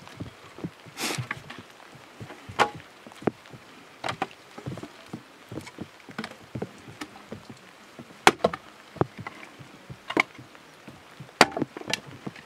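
Small axe splitting firewood into kindling on a chopping block: irregular sharp chops, about nine loud strikes among many softer knocks of wood on wood, with a longer splintering crack about a second in.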